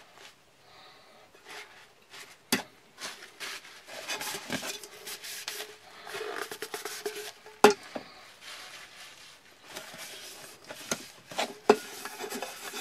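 A wet sponge rubbing and scrubbing dried porridge residue from the inside of a metal camping cook pot, with a few sharp knocks as the pot is handled. The residue comes away easily.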